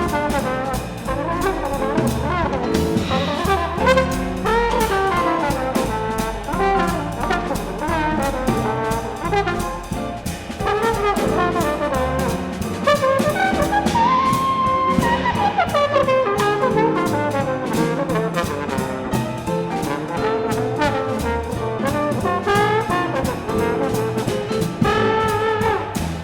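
A jazz quintet playing: trombone out front over piano, bass and drums. About halfway through, one horn note slides up, holds and slides back down.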